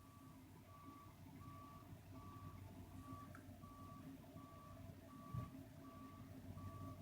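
Faint backup alarm of a snowplow truck beeping steadily, about three beeps every two seconds, over the low rumble of its engine.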